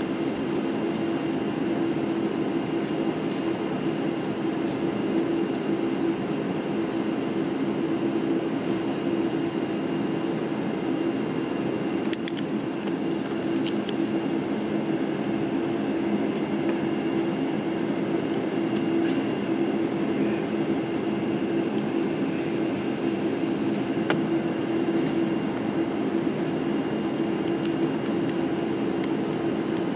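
Steady cabin noise of a Boeing 747-8i taxiing, heard from inside the cabin. Its four GEnx-2B engines are running at taxi power, making an even low drone with a faint high whine over it.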